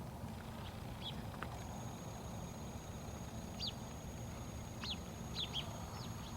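Quiet outdoor ambience: a steady low rumble, with a small bird giving several short, high, down-slurred chirps, spaced irregularly and bunched toward the end. A thin steady high whine runs under the chirps from a couple of seconds in.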